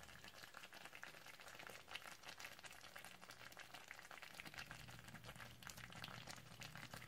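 Shiro wet simmering in a hot clay pot: a faint, dense crackle of small bubbles popping.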